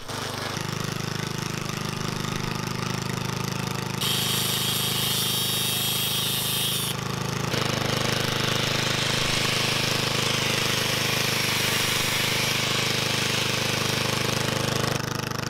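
4-horsepower lawnmower engine running steadily while it drives a homemade generator, with an electric power tool plugged into the generator running over it: a corded drill, then an angle grinder. The sound changes twice as the tools run, a high whine for a few seconds and then a broader, noisier whir.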